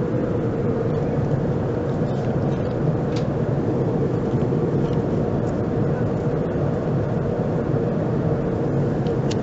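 Steady cabin drone inside an Airbus A330-300 in flight: engine and airflow noise with a constant low hum and rumble.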